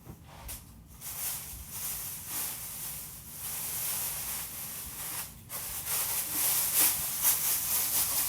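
Plastic bag rustling and crinkling as it is handled, in an uneven run from about a second in, with a brief pause partway through.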